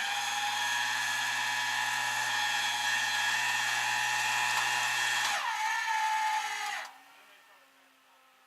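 Electric power tool motor running with a high, steady whine. It holds one speed for about five seconds, drops to a lower pitch, then stops about seven seconds in.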